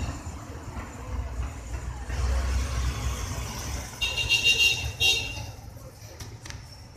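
Steady low background rumble with two short high-pitched tones, about four and five seconds in, then a few faint clicks near the end.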